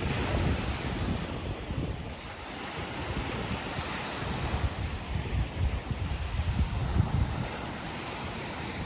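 Ocean surf washing in and out, with wind buffeting the microphone in uneven low rumbles.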